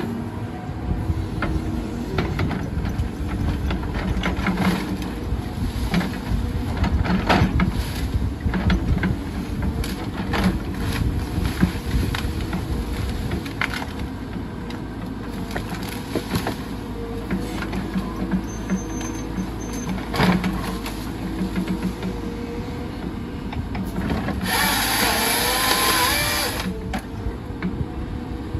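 CAT 311F excavator's diesel engine running under load while its grapple saw grabs and drags brush, with branches snapping and crackling over and over. About 24 seconds in, a louder hiss lasts about two seconds.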